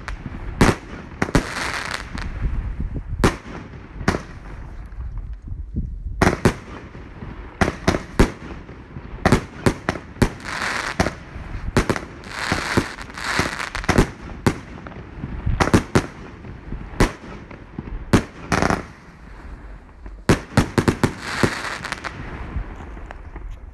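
Jorge JW407 'The Legend' firework battery firing: a steady run of sharp bangs, one every half-second to second, as its tubes launch shots and the shells burst overhead, with a noisy hiss between the bangs.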